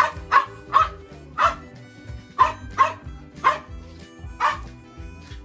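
A dog barking repeatedly, about eight short sharp barks at uneven intervals, with the last one a little before the end. Background music plays steadily underneath.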